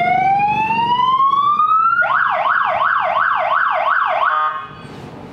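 Aftermarket electronic police-style siren fitted to a motorcycle, sounding a slow rising wail. About two seconds in it switches to a fast warbling yelp of about three sweeps a second, then cuts off suddenly near the end.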